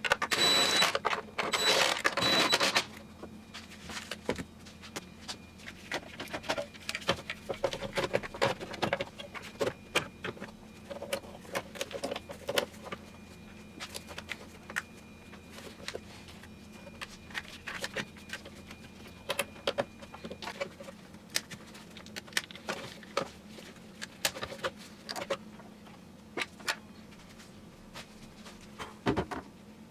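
A cordless ratchet runs for about three seconds with a steady whine, then hand tools click and clink against metal parts in scattered short knocks as car parts are bolted back in place.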